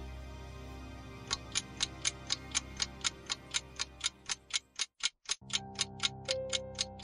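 Countdown clock ticking sound effect, about four even ticks a second, starting about a second in. Soft background music plays under it and drops out briefly about two-thirds of the way through.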